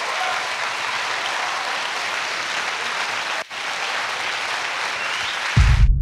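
A large audience applauding, a steady even clatter of many hands. Near the end the applause cuts off and a loud, deep bass sound starts suddenly.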